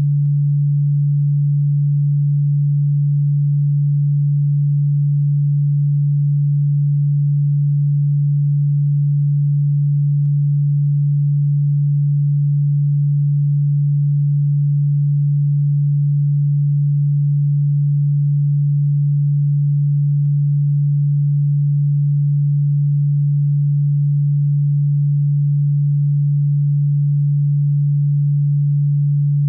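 A single low-pitched pure electronic tone, held perfectly steady without any change in pitch or loudness, played as an insect-repellent sound. Though sold as ultrasonic, it sits low and is plainly audible.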